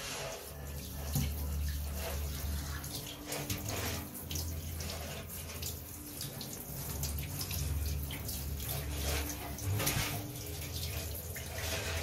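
Handheld shower head spraying water onto a puppy's coat and splashing into a bathtub.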